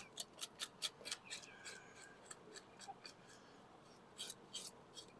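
Small serrated knife scraping the scales off a black sea bass on a plastic cutting board: short, sharp scraping strokes, several a second at first, then sparser.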